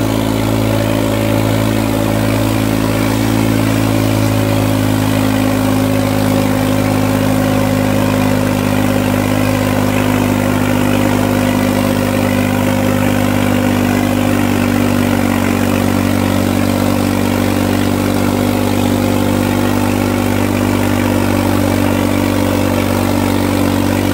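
Modified New Holland tractor's diesel engine running hard at a steady speed under heavy load as it drags a weighted harrow. The engine note holds almost unchanged throughout.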